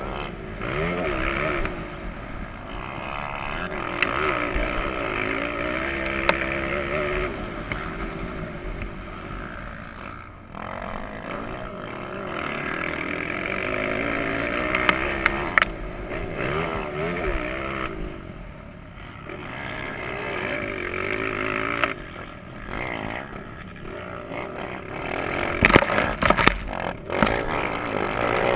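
Motocross bike engine at race speed, revving up and falling back again and again as the rider accelerates, shifts and rolls off for corners, with wind rushing over the microphone. Near the end there is a cluster of sharp knocks and clatter.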